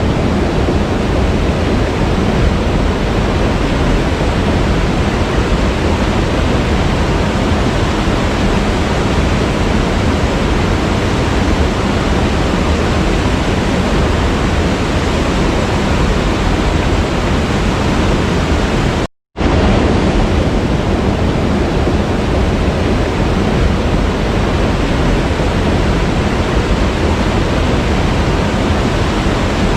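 Waterfall: a steady, dense rush of falling water. It cuts out completely for a fraction of a second about two-thirds of the way through, then resumes unchanged.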